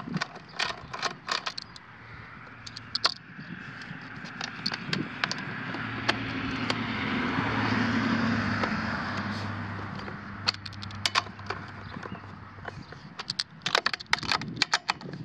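Metal clicks of a socket tool tightening the cap nuts on a small engine's plastic recoil starter housing, in clusters near the start and again near the end. In the middle a passing motor vehicle hums, swelling and then fading.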